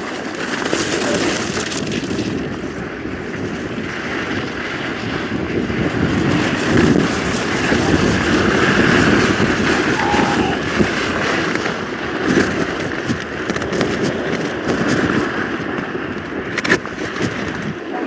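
Downhill racing skis running at high speed on the snow course: a steady, loud rushing scrape of the bases and edges. In the second half it breaks into rattling chatter, with a couple of sharper clicks.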